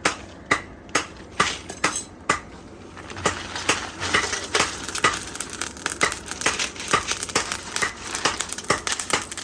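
Hand hammer blows on steel, about two a second, each with a short metallic ring. After about three seconds the strikes come quicker and less even over a steady rasping noise.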